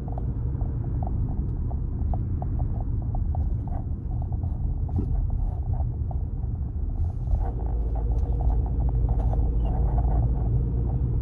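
Steady low rumble of a car driving along a street, with many light ticks over it.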